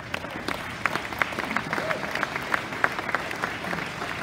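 Audience applauding: many hands clapping, starting suddenly and carrying on steadily.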